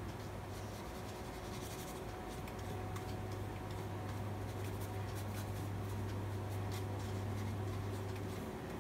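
Paintbrush loaded with gouache stroking across sketchbook paper: soft brushing with scattered light ticks, over a steady low hum.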